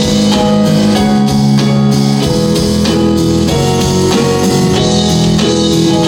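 Curtain-call music from the musical: an instrumental arrangement with sustained chords over a steady drum beat.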